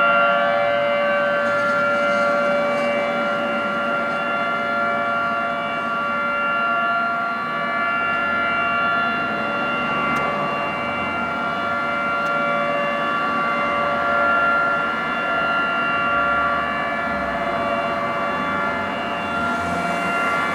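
Federal Signal 2T22 dual-tone rotating outdoor warning siren sounding a steady test signal: a two-pitch chord held level, with no rise or fall, swelling slightly in loudness.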